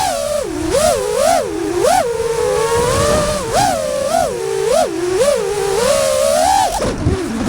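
FPV quadcopter's electric motors and propellers whining, the pitch swooping up and down quickly and repeatedly with throttle changes, over a rushing hiss of air.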